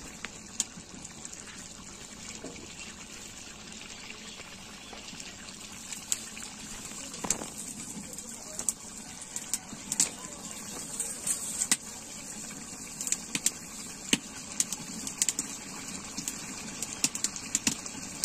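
Chicken curry boiling in a black iron kadai over an open fire: a steady hiss with frequent sharp, irregular pops that grow more frequent in the second half.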